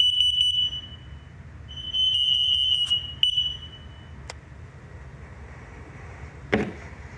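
Household smoke alarm sounding its shrill, high-pitched tone in three bursts as it is tested, followed by a sharp click and, near the end, a thump.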